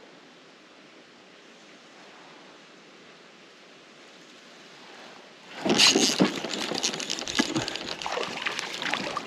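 Wading through shallow creek water: after a quiet stretch, loud splashing and sloshing with sharp clicks starts about five and a half seconds in, close to the chest-mounted microphone.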